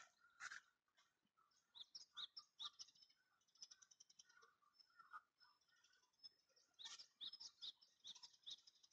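Faint small-bird chirping: short high notes in a cluster about two seconds in and again near the end, with a faint trill in between.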